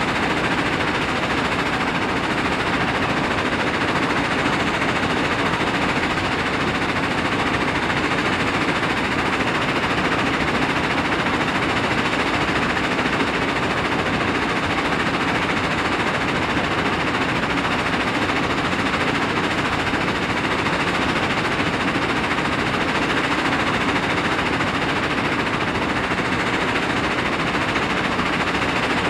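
Tracked mobile jaw crusher, a Powerscreen Premiertrak 400X, running under load and crushing rock: a loud, steady, dense clatter without let-up.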